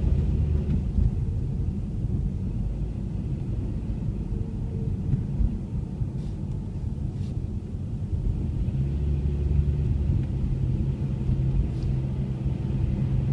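Steady low road and engine rumble inside a car driving on snow-covered roads, the engine's hum growing a little stronger about nine seconds in.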